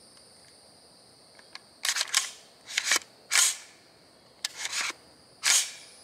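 Sharp metallic clicks and clacks from a Freedom Ordnance FX-9 9mm AR pistol being handled and its action worked, about eight of them with some in quick pairs. The owner thinks the gun might need a little oil.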